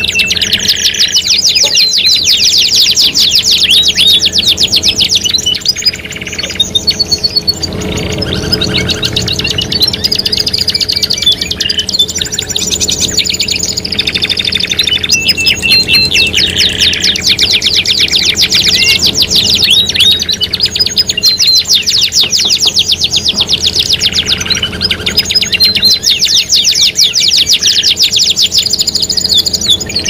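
Several domestic canaries singing at once: long, rapid rolling trills and sharp repeated chirps, with hardly a pause, over a faint steady low hum.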